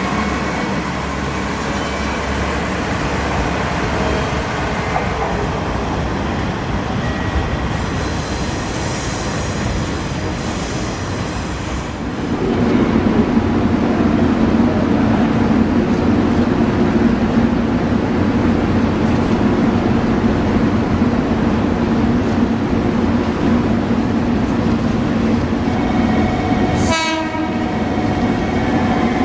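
JR Kyushu KiHa 125-400 diesel railcar moving through the station with its engine running. About 12 seconds in the sound changes to a steadier, louder low engine note as the railcar approaches along the track. Near the end comes a brief high sound sliding quickly down in pitch.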